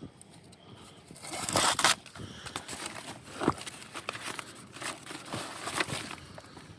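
Peel ply being torn off cured epoxy and fibreglass laminate: a loud ripping tear about a second and a half in, then shorter crackling tears and crinkling with a few sharp clicks as the fabric strips away.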